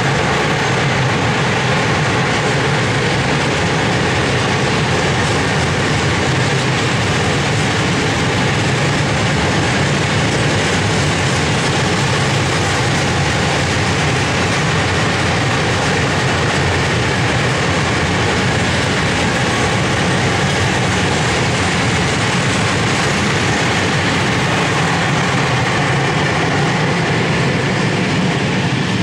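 A long train of open freight wagons rolling past close by: a steady, loud rush and rattle of steel wheels on the rails.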